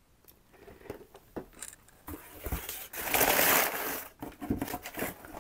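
Hands rummaging in a cardboard shipping box full of boxed figures: packaging rustling and crinkling, loudest for about two seconds in the middle, with scattered light knocks of boxes being handled before and after.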